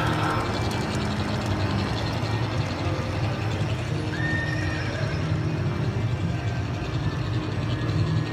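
Large-scale garden model train running along its track: a steady low rumble with fine rapid clicking from the wheels, and a brief high tone about four seconds in.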